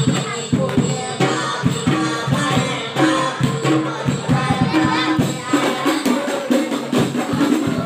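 Hadroh-style ensemble of rebana frame drums and hand drums beating a steady, busy rhythm, with a boy singing into a microphone over it.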